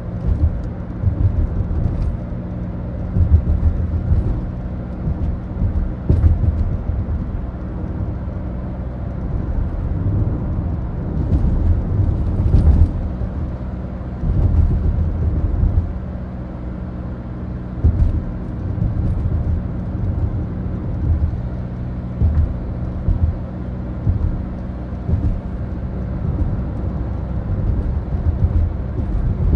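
Ford Focus diesel heard from inside the cabin while driving: a steady low engine drone with road rumble that swells and eases, and a few faint clicks.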